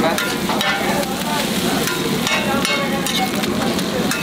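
Egg noodles and shredded vegetables sizzling in oil on a large flat steel pan, with a metal spatula repeatedly scraping and tapping the pan as they are stirred.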